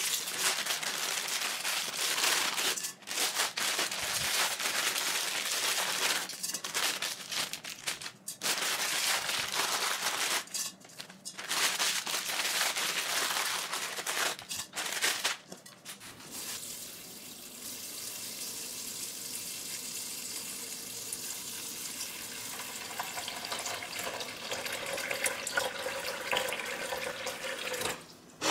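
Plastic noodle packets crinkling in irregular bursts as Korean glass noodles are unpacked and handled. A little past halfway this gives way to a kitchen tap running steadily into a pot in the sink, filling it with water to soak the noodles.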